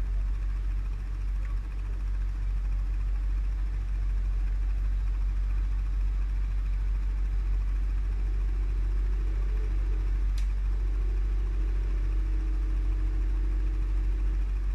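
ATV engine running steadily, under a heavy low rumble, with a single short click about ten seconds in.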